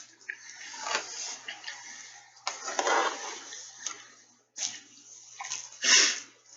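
Eating a jumbo hot dog close to the microphone: wet chewing and mouth sounds in irregular bursts, loudest about three seconds in and near the end.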